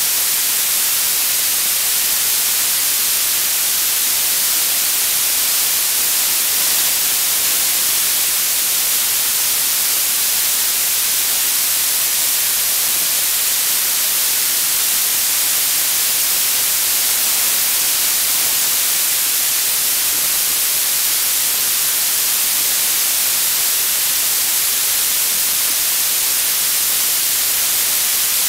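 Steady static hiss, strongest in the upper treble and unchanging throughout, from the empty audio channel of an analog FPV video receiver recording; no drone motor sound comes through.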